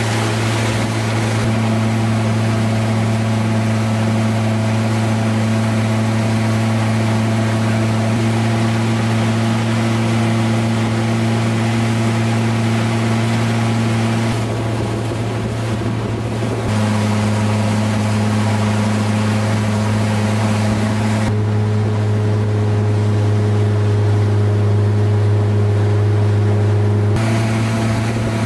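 Motorboat engine running at a steady drone with a strong low hum, over the rush of the boat's wake and spray. The tone of the drone shifts abruptly a few times.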